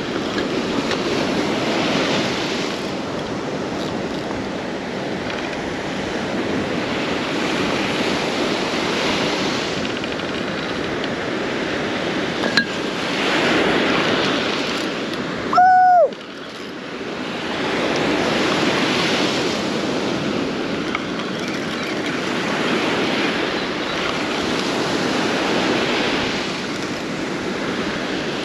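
Gulf surf breaking on the beach, the wash swelling and easing every few seconds, with wind on the microphone. A little over halfway through, a short high beep-like tone cuts in loudly for about half a second, dipping in pitch as it ends.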